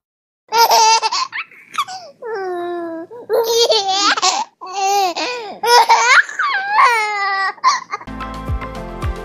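Boys laughing hard in high-pitched, breathless bursts and squeals, with some drawn-out sliding notes. Background music with a beat comes in near the end.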